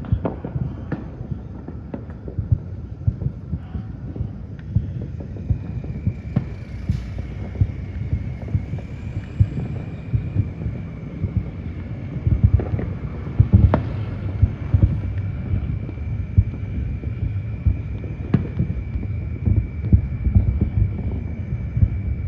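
New Year fireworks going off: a dense run of dull booms and sharp bangs overlapping without pause. About six seconds in, a steady high tone joins and holds.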